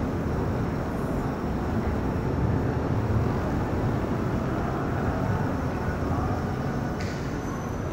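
Steady low rumbling background noise of a train station concourse picked up by a handheld camera on the move, with a faint high steady tone starting near the end.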